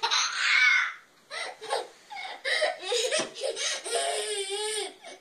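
A young child laughing and squealing in short bursts, then one long high squeal about four seconds in.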